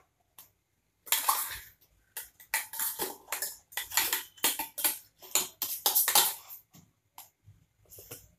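A metal spoon scraping and clinking against a small steel bowl while cream is scooped out: a quick run of short scrapes and taps that dies away near the end.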